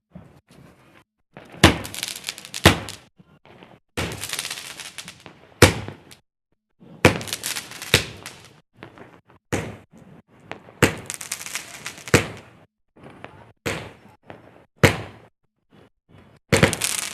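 A 25-shot aerial firework cake firing shot after shot: a dozen or so sharp bangs, about one every second and a half, each trailed by up to a second of crackling noise.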